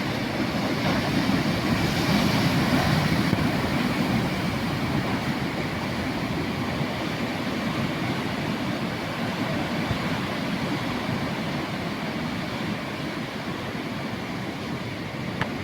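Sea waves on the shore: a continuous rushing surf, a little louder for a couple of seconds near the start.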